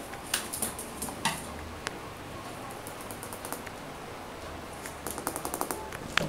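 Chihuahua puppies' claws clicking on a tiled floor as they scamper about: a few scattered clicks, then a quick run of clicks about five seconds in.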